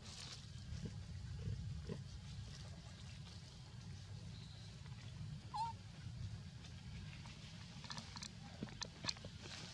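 Long-tailed macaques moving among dry leaf litter: a steady low rumble throughout, one short high squeak about halfway, and a cluster of light crackles near the end as a monkey walks over the dry leaves.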